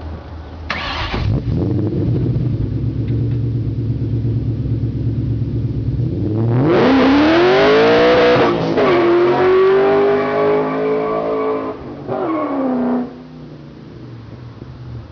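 1999 Ford Mustang SVT Cobra's 4.6-litre DOHC V8, fitted with long-tube headers and SLP Loudmouth II mufflers, idling with a quick rev about a second in, then launched hard a little under halfway through. The revs climb steeply with the street tires spinning, dip briefly at a shift, climb again, then drop off at a lift and settle back to idle.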